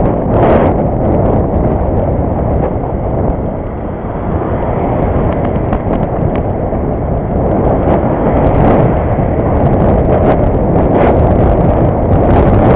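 Heavy wind buffeting the microphone of a camera riding on a moving bicycle, a loud steady rumble with a few small knocks and rattles scattered through it.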